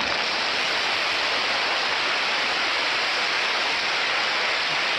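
A steady, even rushing noise like hiss or falling water, holding at one level without a break.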